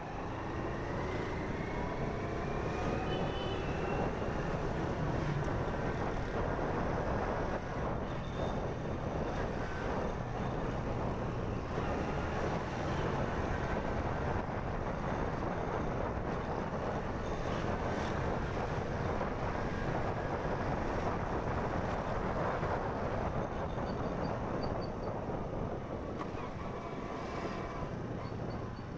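Motorbike engine running while riding along a street, with wind noise over the microphone; the engine note rises in the first few seconds as the bike picks up speed, then holds steady.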